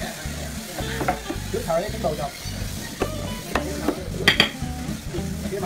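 A small hammer knocking on a raised wooden door panel to seat it in its frame. There are a few sharp knocks, and the loudest comes a little after four seconds in, amid the rustle of wood panels being handled.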